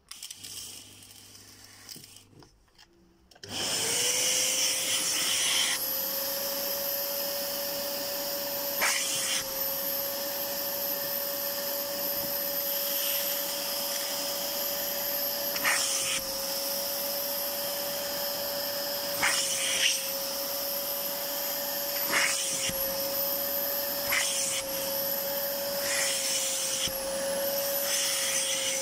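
Kärcher spray-extraction cleaner switching on about three and a half seconds in, after some quiet handling, then running steadily with a constant hum, sucking through an upholstery nozzle drawn over fabric car-seat cloth. A high airy hiss on top of it breaks off briefly several times as the nozzle moves.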